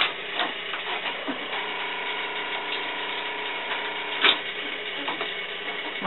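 Cord plugs going in and out of the jacks and keys being worked on a Western Electric 555 cord switchboard: scattered clicks and clacks, one louder clack about four seconds in, over a steady hum.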